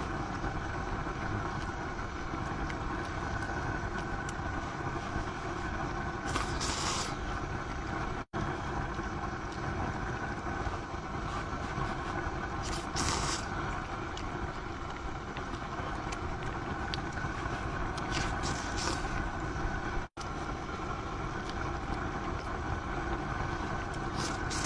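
Steady rumbling hiss of a high-power LPG burner under a hotpot, with a short sharper hiss every several seconds and two brief cuts in the sound.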